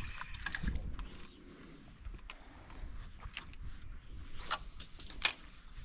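Spinning reel being wound through a lure retrieve, with scattered short sharp clicks and ticks from the reel and rod handling.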